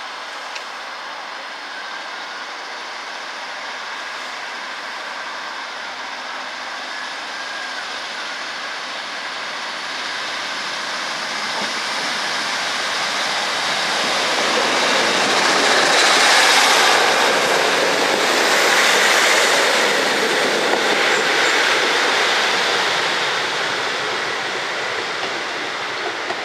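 Class 156 diesel multiple unit approaching and running past along the platform. Its engine and wheel noise build steadily to a peak a little over halfway through, then fade as it moves away.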